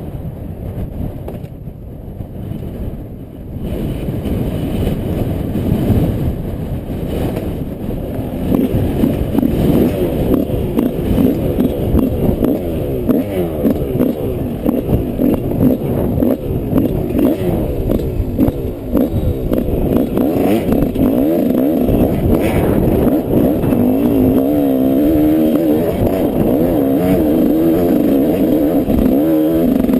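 Yamaha 125 cc off-road motorcycle engine running under load as the bike is ridden, its pitch rising and falling over and over with the throttle. It is quieter for the first few seconds, then louder.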